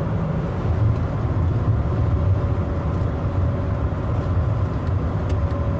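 Steady in-cabin drone of a 2000 BMW 540i's 4.4-litre V8 at highway cruise, mixed with tyre and road noise, with a faint constant whine above the low hum.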